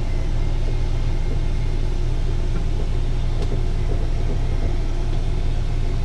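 Steady low rumble of an idling engine, heard inside the motorhome.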